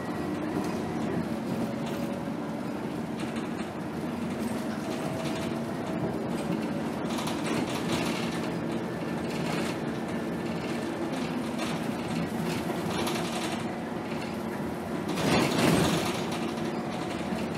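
Cabin noise inside a moving Scania K280 city bus: the diesel engine running steadily with road noise and small rattles from the fittings, and a louder rush lasting about a second near the end.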